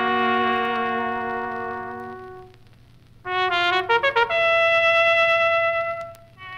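Recorded brass band cornet playing: a held band chord fades away. After a short pause, a cornet plays a quick run of notes up to a long held high note, followed by more short, quick notes.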